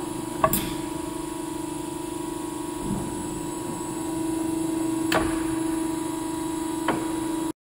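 CNC tube bending machine running with a steady mechanical hum, with sharp metallic clicks about half a second in, near five seconds and near seven seconds.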